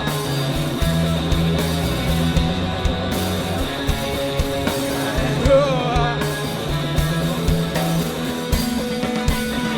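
Rock band playing live, with electric guitar to the fore over bass and drums, in a passage with little or no singing.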